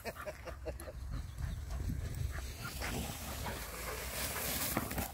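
Dogs, among them a Bernese mountain dog and Patterdale terriers, bounding through young wheat, the stalks rustling as they push through, with a dog panting close by. The rustling grows louder about four seconds in.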